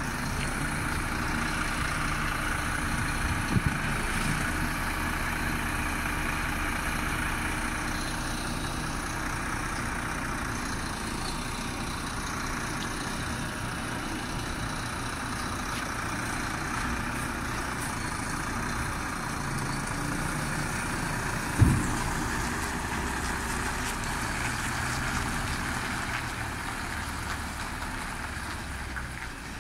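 Cleanaway collection truck's diesel engine running at low speed as it moves off, fading near the end as it pulls away. A sharp bang rings out once about three-quarters of the way through, with a couple of smaller knocks near the start.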